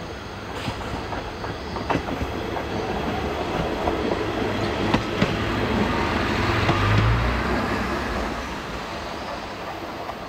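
KiHa 40 diesel railcar passing close by: the engine's rumble and the clicking of its wheels over the rail joints grow louder, peak about seven seconds in as it goes past, then fade away.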